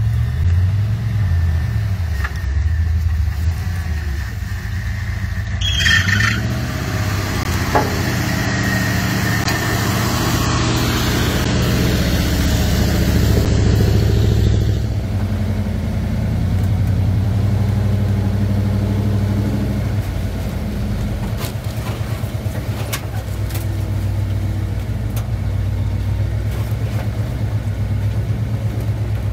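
1985 Ford Bronco's engine running while driving off-road, its pitch rising and falling as the throttle is worked in the first seconds. From about six to fifteen seconds in, a loud rushing noise runs over the engine, and after that the engine settles into steadier running.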